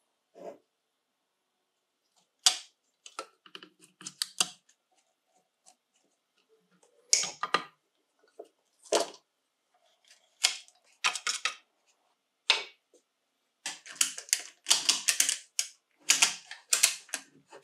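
Scattered short clicks, taps and rattles of small metal parts and tools being handled on a workbench. In the last few seconds a ratchet strap is worked, giving a quick run of ratcheting clicks.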